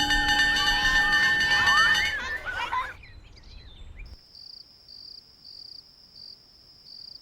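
A held music chord with chirping bird calls fades out over the first three seconds. About four seconds in, faint cricket chirping starts, a high trill in regular pulses.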